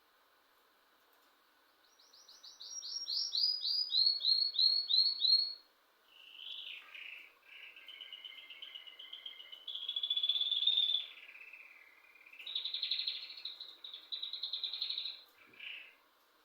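Songbird singing. About two seconds in comes a run of quick, high notes that step down in pitch, followed by varied warbling phrases and fast trills that stop just before the end.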